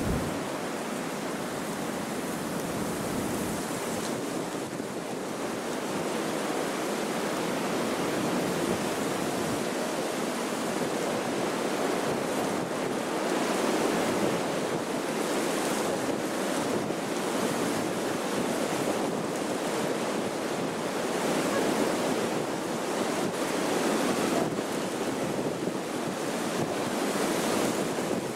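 Strong wind blowing as a steady rushing noise that swells and eases in gusts, partly buffeting the microphone.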